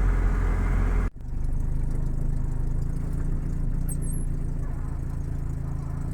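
UAZ off-road vehicle's engine running steadily under way. About a second in the sound cuts off sharply and resumes a little quieter and steadier.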